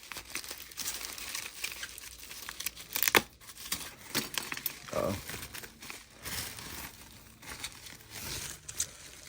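Plastic packaging crinkling and tearing by hand as graded card slabs are unwrapped, with scattered sharp clicks and a louder snap about three seconds in.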